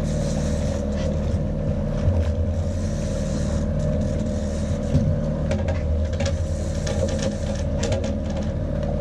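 Boat's outboard motor running steadily, a constant low hum with a steady higher drone, over wind and water hiss.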